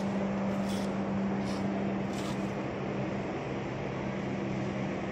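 Small engine of a construction machine running steadily, a constant low hum whose note shifts slightly about three seconds in. Four short hissing noises come over it in the first half.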